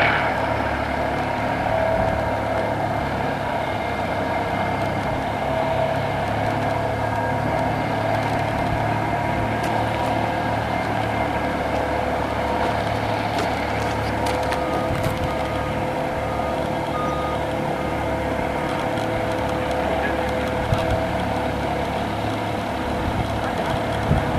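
Heavy hydraulic excavator working a telescopic vibratory sheet-pile hammer, running steadily: a constant pitched whine over a low rumble. A faint short beep repeats for a few seconds about midway.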